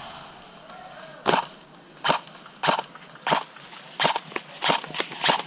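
A series of about nine short sharp cracks at uneven spacing, the first about a second in, coming faster towards the end.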